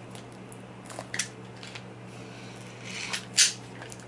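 A few short scrapes and clicks of a box cutter working on a small cardboard box, the sharpest about three and a half seconds in, over a faint steady hum.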